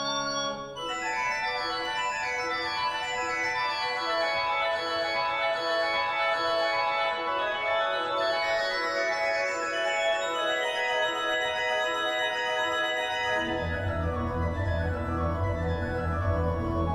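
Organ improvisation: a held chord gives way a little under a second in to sustained chords with upper lines climbing and then falling in pitch. A deep bass note comes in near the end.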